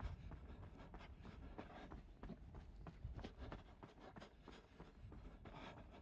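Faint running footsteps, about three quick steps a second, over a low rumble.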